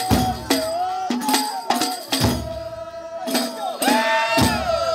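Ahwach music: several large hand-held frame drums beaten in a driving, uneven rhythm while a chorus of men sings long, sliding notes over them.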